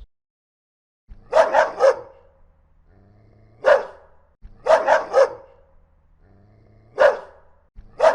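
Dog barking angrily in short runs: about a second in, three quick barks, then a single bark, then three quick barks and another single bark, with a new bark starting right at the end.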